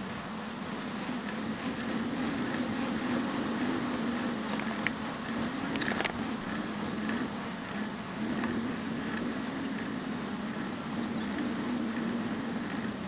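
Bicycle riding along a paved trail: steady rolling noise with a low hum that wavers in pitch. A couple of sharp clicks come about five and six seconds in.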